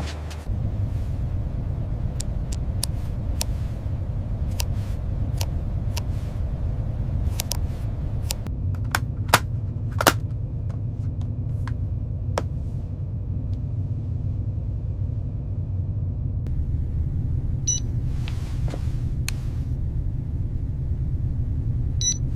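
A steady low rumble with scattered sharp clicks and knocks throughout, two of them louder about nine and ten seconds in, and short runs of high beeps twice near the end.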